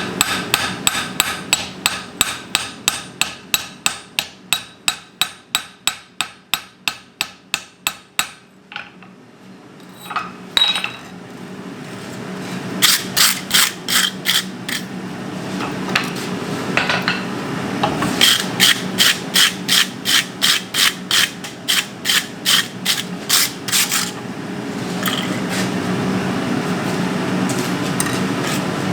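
Blacksmith's hand hammer striking hot steel on an anvil in runs of quick, even blows, about three or four a second, with the anvil ringing. The first long run stops about eight seconds in; after a short pause come several shorter runs. A steady low hum sounds underneath.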